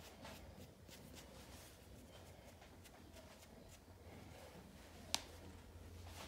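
Near silence, with faint strokes of a hairbrush through short, freshly cut hair, a low steady hum, and one sharp click about five seconds in.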